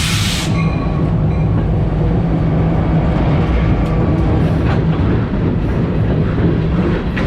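A train passing close by on the tracks: a steady, loud rumble of the cars rolling over the rails, with a brief harsh hiss-like burst right at the start.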